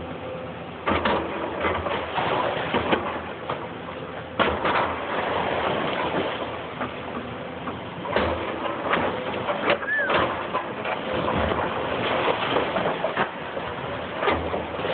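Excavator breaking and moving brick demolition rubble: heavy crashes and clatters of falling masonry about a second in, around four and a half seconds, around eight and ten seconds and near the end, over a steady rumbling, crunching din. A short squeak sounds near the middle.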